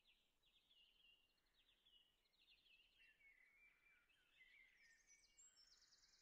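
Faint woodland birdsong: songbirds singing rapid trills and short warbled phrases, some higher-pitched than others, over a quiet background hiss.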